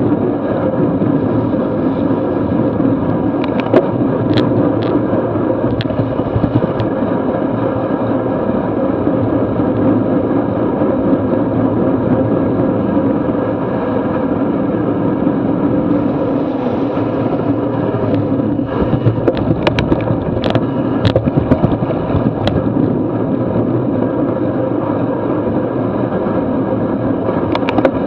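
Steady rush of wind on the microphone and tyre noise from a road bike racing at about 25 mph on a wet road. A few sharp clicks come about four seconds in and again around twenty seconds in.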